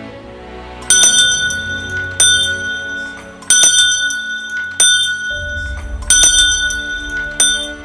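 Small chain-pulled sacristy bell rung six times, about one and a quarter seconds apart, each strike high and ringing briefly: the signal that the priest and servers are leaving the sacristy for Mass. Soft background music runs underneath.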